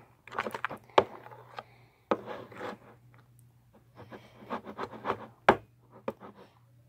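A mixing utensil scraping and knocking against a plastic bowl while stirring fluffy glue-and-shaving-cream slime as borax activator is mixed in. The scraping comes in three spells, with sharp knocks about a second in and near the end.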